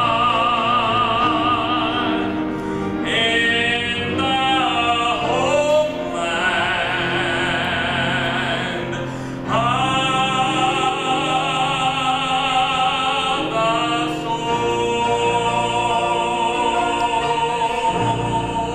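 A man singing a solo into a microphone with a wide vibrato, holding long notes near the end, over an instrumental accompaniment.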